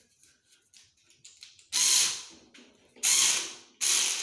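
Black & Decker cordless screwdriver driving a screw into a shower rod's wall mount, run in three short bursts about a second apart, each starting sharply and fading, after a few faint clicks of the bit on the screw.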